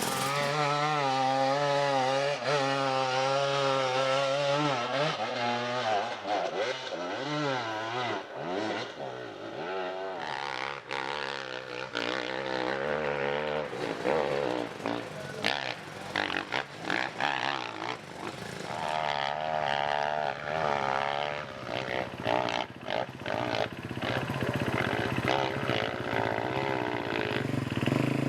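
An off-road vehicle's engine revving up and down while driving over rough dirt, its pitch wavering with the throttle. From about six seconds in the engine note becomes rougher and is mixed with many short knocks and clatter.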